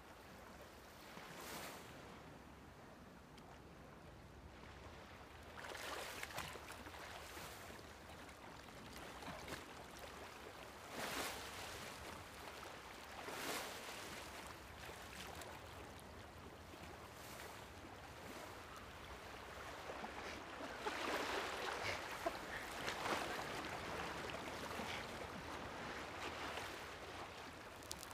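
Shallow surf washing over a shingle beach. The waves swell and recede several times, and the longest, loudest wash comes about two-thirds of the way through.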